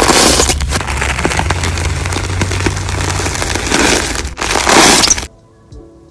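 Crunchy slime being squeezed and pressed, a dense crackling full of sharp pops and clicks. It cuts off suddenly about five seconds in, leaving faint music.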